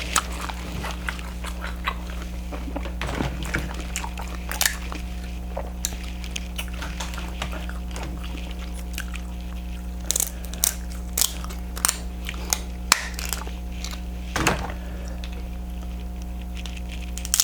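Close-miked eating of a seafood boil: chewing, wet smacks and sharp clicks of sauce-coated seafood, in irregular scattered strokes that bunch together about ten seconds in, over a steady low hum.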